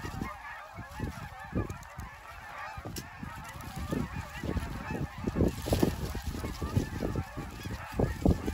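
A large flock of geese calling, many honks overlapping into a continuous chatter, with irregular low buffeting of wind on the microphone.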